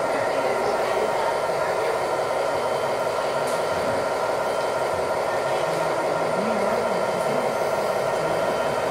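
Steady mechanical whine and hum from a radio-controlled Cat 980 wheel loader model as it lifts and tips a bucket of pellets into a model haul truck.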